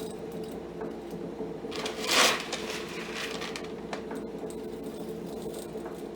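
Soybeans rattling into a grain moisture tester: one short, loud burst of rattling about two seconds in, with light clicks of handling, over a steady machine hum.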